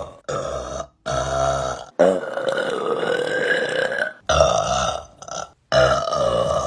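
A woman burping, a string of long, deep burps one after another with abrupt cuts between them; the longest lasts about two seconds.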